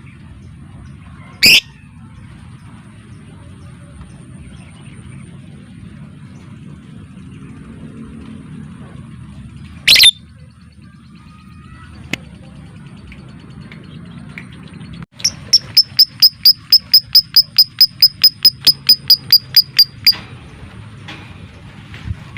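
Lovebird calling: two single shrill, rising calls, then about two-thirds of the way in a fast, even run of sharp ticking notes, about five a second for some five seconds. This is the 'ngetik' (typing) call that lovebird keepers play to stir other birds into singing. A low steady hum lies underneath.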